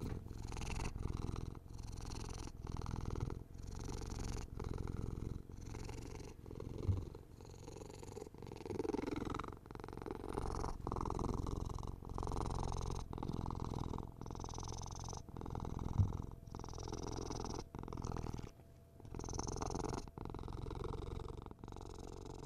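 A kitten purring close up, a steady low purr that rises and falls in a regular pulse about once a second.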